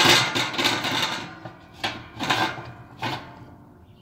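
Steel rebar rods being slid into the holes of a Pit Barrel Cooker's steel drum: several metal scrapes and knocks.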